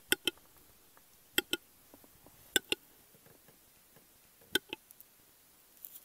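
Male western capercaillie singing on its display perch: the opening phase of its lek song, a slow series of sharp double clicks. Four pairs sound one to two seconds apart.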